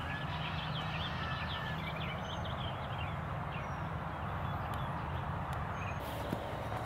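Early-morning outdoor ambience: small birds chirping in quick, busy bursts over a steady low rumble, the chirping thinning out about halfway through. About six seconds in, footsteps swish through tall grass.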